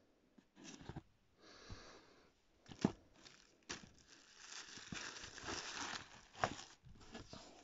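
Packaging paper and a plastic wrapper rustling and crinkling as they are handled in a cardboard box, with a longer stretch of crinkling in the second half. Two sharp knocks, about three seconds in and near the end, are the loudest sounds.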